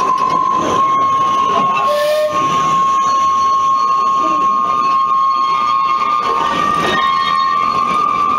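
Narrow-gauge steam train on the move, with one long, steady high-pitched tone held throughout, creeping slightly higher in pitch near the end, over a running hiss.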